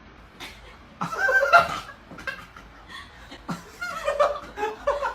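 People chuckling and snickering in short bursts, the loudest about a second in.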